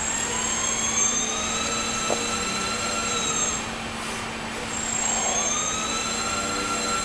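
Electric motor and propeller of an indoor F3P aerobatic model airplane whining, the pitch rising and holding as the throttle opens, dropping away about halfway, then rising again near the end.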